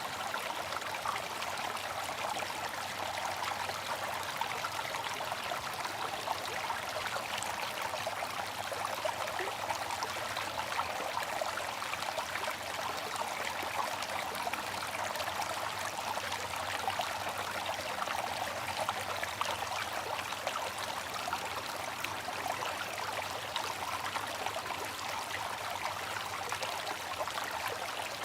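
Bamboo water fountain: water running and trickling in a steady, even splash that does not change.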